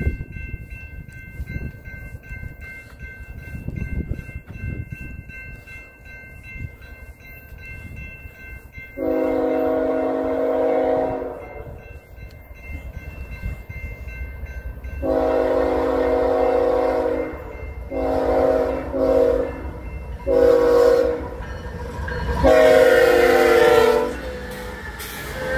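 Railroad crossing bells ringing with an even, steady beat while the approaching lead locomotive, a BNSF GE ES44C4, blows its horn for the crossing. There are two long blasts about six seconds apart, then several shorter ones, and a final long blast as the locomotive reaches the crossing, over the low rumble of the train.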